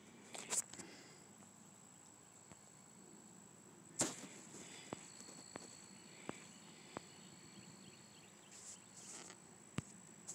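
Faint scattered clicks and taps, the loudest about four seconds in, over a steady high-pitched whine and low room noise.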